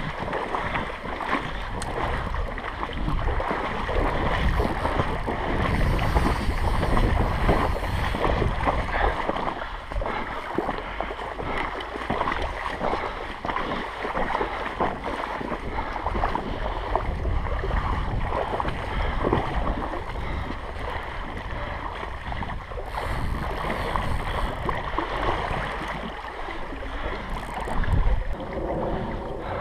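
Shallow stream water rushing and splashing around an angler wading in it, with wind buffeting the microphone. A louder splash near the end as a landing net goes into the water.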